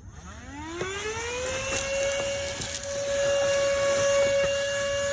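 Tzumi IonVac cordless handheld vacuum switched on: its motor whine rises in pitch as it spins up over about a second and a half, then runs steady with a rush of air, with a few short clicks along the way.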